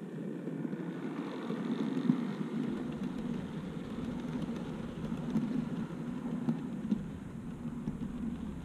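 OO gauge model freight train, a diesel locomotive and its wagons, running past close by: a steady rumble of wheels on the track that swells about a second in, with a few sharp clicks.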